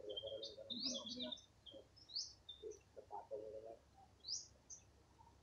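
Small birds chirping: short high whistled notes, several of them sweeping quickly upward, in a cluster at the start and again about two and four seconds in.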